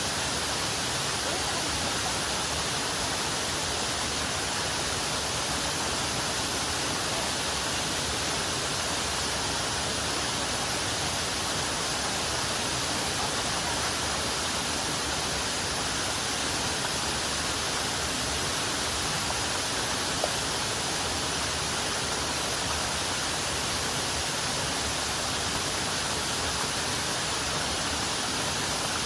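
Waterfall: a steady, unbroken rush of falling water, even in level throughout and strongest in its hissing upper range.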